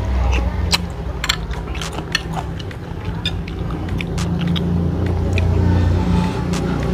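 Close-miked eating sounds: slurping chicken noodles and chewing, with scattered wet clicks and crackles of mouth and utensils, over a steady low rumble that swells a little past the middle.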